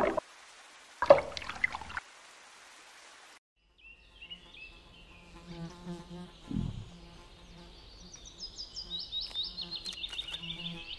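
Cartoon bee buzzing: a pulsing, pitched drone that starts about four seconds in, with high chirping over it in the later part and a low thud about six and a half seconds in. Two short sound effects come in the first two seconds.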